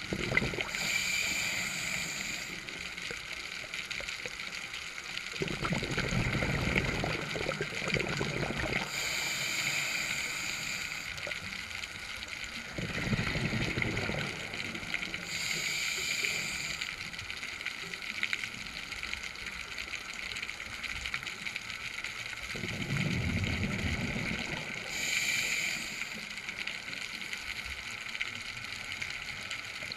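Scuba diver breathing underwater through a regulator. Short hisses alternate with longer, low bubbling rumbles in a slow cycle, about every seven to eight seconds.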